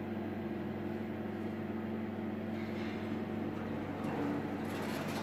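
2014 Dźwig Serwis passenger elevator running, heard from inside the car: a steady hum with a few low steady tones from the drive, the car travelling upward.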